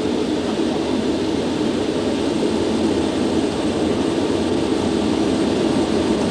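Concorde's Olympus jet engines at takeoff power, with runway rumble, heard from inside the flight deck as a steady, unbroken roar during the takeoff roll, as speed builds past 100 knots toward V1.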